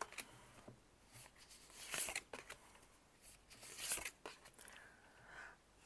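Faint rustling and light snapping of tarot cards being handled and drawn, in a few short bursts, the clearest about two and four seconds in.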